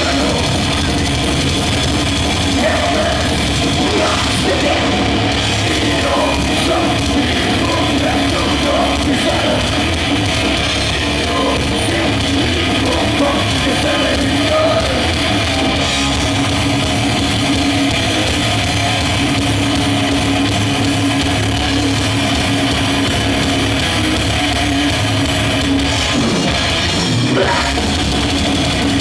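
Death/thrash metal band playing loudly and without a break, drums and amplified instruments together through a live PA.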